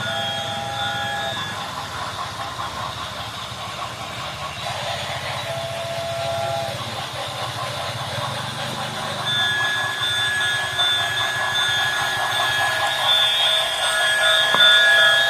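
Model trains running on a layout: a steady rattle of train running sounds, with short horn-like tones near the start and around six seconds in, and a long held whistle tone from about nine seconds on.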